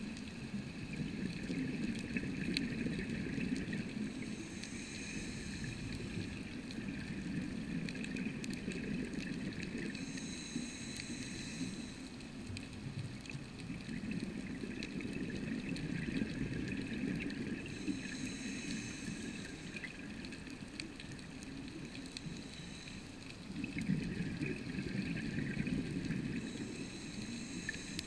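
Scuba diver breathing underwater through a regulator. A short hissing inhale alternates with a longer bubbling exhale, in four slow breaths about seven seconds apart.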